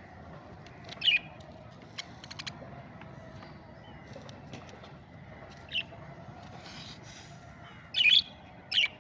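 Budgerigar giving short, separate chirps: one about a second in, one near six seconds, and two louder ones close together near the end, with a few sharp clicks around two seconds in.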